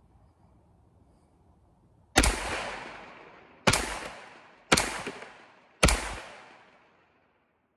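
Four single shots from a homebuilt 9mm AR-pattern pistol with a faux-suppressor barrel extension, fired about a second apart starting about two seconds in, each trailing off in a long echo.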